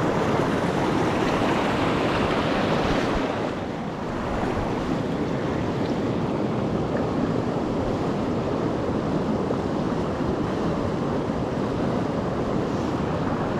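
Creek water rushing steadily, an even hiss, with a brief drop in level about four seconds in.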